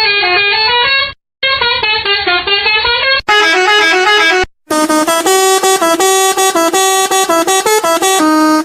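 Telolet horn of an Indonesian sand truck, the multi-tone musical air horn, playing a quick tune of notes that step up and down. It breaks off abruptly about a second in and again past four seconds, and sounds brighter from a little after three seconds.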